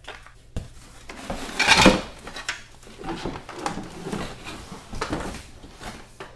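Hard plastic playset pieces knocking, clattering and scraping against a cardboard box as they are handled and pulled out, with rustling; the loudest clatter comes a little under two seconds in.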